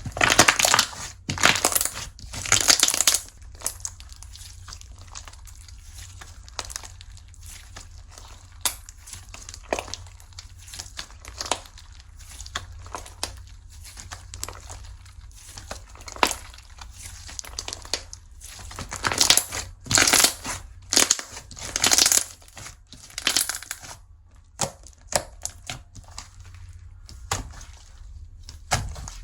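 Slime being squeezed and stretched by hand, giving irregular crackling, crunching pops. The loudest clusters come in the first few seconds and again about two-thirds of the way through.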